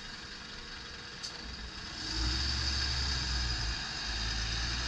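Volvo FE320 tipper truck's six-cylinder diesel engine running at idle, then pulling harder and louder about two seconds in as the truck moves off, with a brief dip in the engine note near four seconds in.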